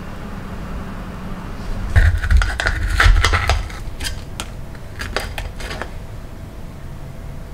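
Plastic rice paddle scraping and knocking against a stainless steel pot as it lifts a crust of scorched rice (nurungji) off the bottom. From about two seconds in there is a run of scrapes and clatter, followed by a few separate sharp taps.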